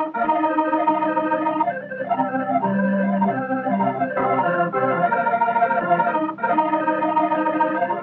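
Film soundtrack music played on an organ: sustained chords with a changing melody line over held bass notes, broken by short gaps between phrases.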